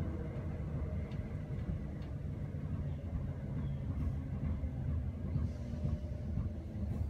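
Class 319 electric multiple unit running, heard from inside the motor coach under the pantograph: a steady low rumble of wheels on rails and the running gear, with a few faint ticks.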